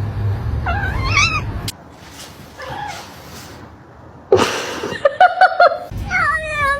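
Kitten meowing and yowling repeatedly in pitched, gliding calls, over a low steady rumble in the first second and a half. A sudden loud noisy burst comes about four seconds in, followed by a quick run of short calls and a long falling yowl near the end.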